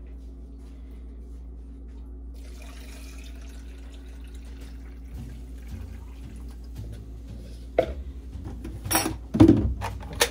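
Water poured from a plastic container into a blender jar packed with dried red chilies and spices, a light steady pouring. In the last couple of seconds come several sharp plastic knocks and clatters as the blender's lid is fitted onto the jar.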